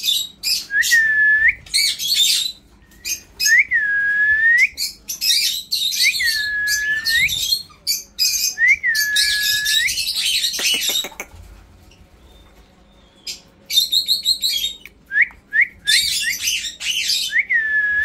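Alexandrine parakeet calling loudly: a series of harsh screeches, each carrying a whistled note that dips and rises again. After a short lull past the middle comes a fast chattering run, then more screeches near the end.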